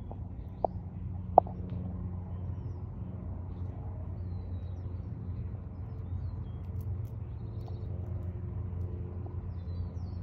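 Steady low mechanical rumble with a hum of level tones over it. Two sharp clicks come in the first second and a half, and faint bird chirps are heard now and then later.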